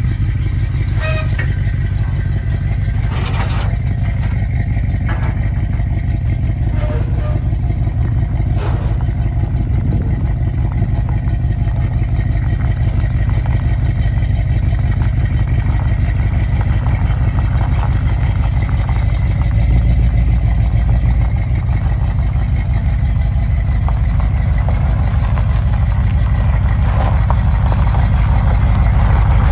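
1969 Dodge Dart's engine running steadily at a low idle as the car comes off the trailer, with a few metal knocks in the first several seconds.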